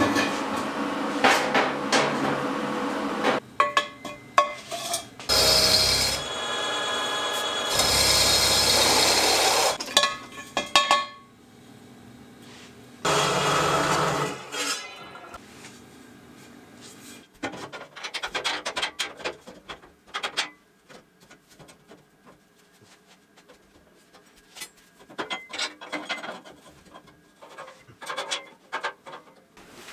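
Steel fabrication sounds: steady abrasive rasping on steel at the start, loud bursts of cutting including a metal-cutting chop saw running through steel stock about halfway, then scattered metallic clanks and taps as steel parts are fitted.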